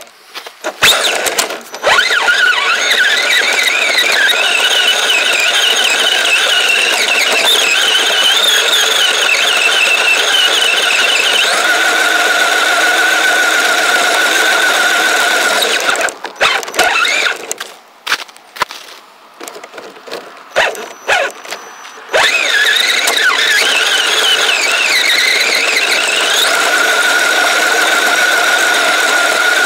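Kyosho Blizzard RC snow vehicle's electric motor and track drive whining as it drives, pitch rising and falling with throttle. It stops for a few seconds about two-thirds of the way through, with a few clicks, then starts driving again.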